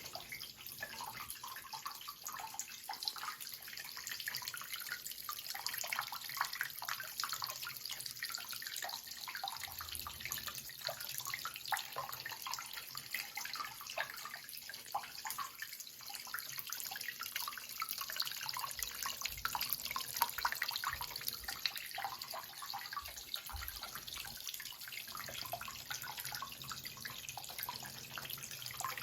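Running water splashing and trickling steadily.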